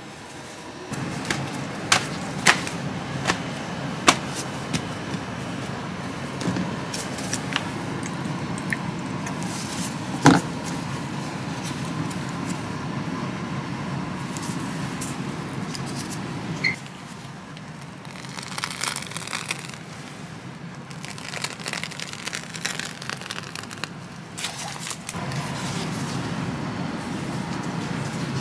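Kitchen background: a steady low hum with a few sharp clicks and knocks of utensils and squeeze bottles on the counter. The hum drops out for several seconds past the middle, where there is a spell of fainter crackly noise, and then returns.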